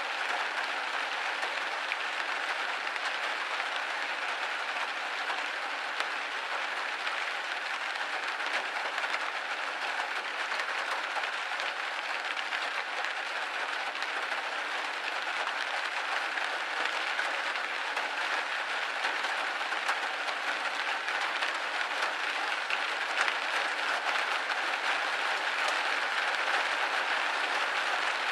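Steady rain pattering on window glass, a dense even hiss of many small drops with no thunder or pauses.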